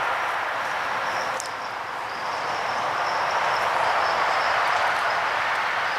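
Fast-moving stream water rushing steadily, with one faint click about a second and a half in.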